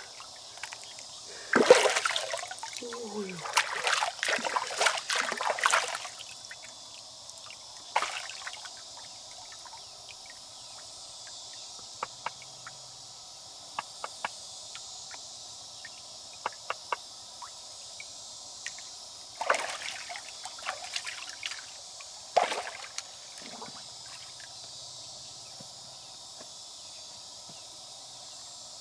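Water splashing and sloshing in bursts, with scattered small clicks between them, over a steady high hiss.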